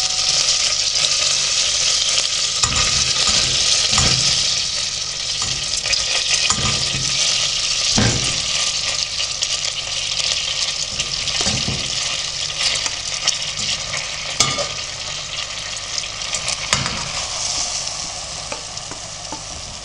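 Hot melted butter sizzling in a stainless steel pot as drained cottage cheese is tipped into it from a colander, with a few knocks against the pot. The sizzle eases off a little toward the end as the cheese fills the pot.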